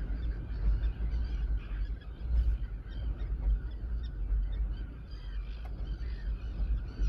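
Outdoor ambience: a steady low rumble with many short, faint bird calls scattered through it.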